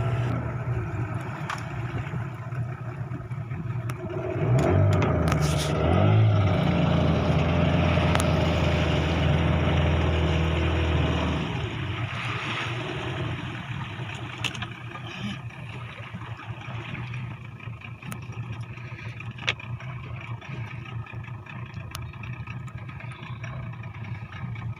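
Boat motor running, louder and higher from about four seconds in, then easing off after about eleven seconds.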